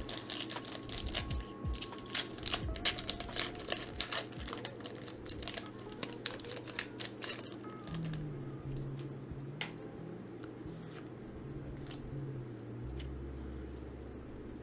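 Foil booster pack wrapper crinkling and trading cards being handled: dense crackling for about the first seven seconds, then only a few scattered clicks.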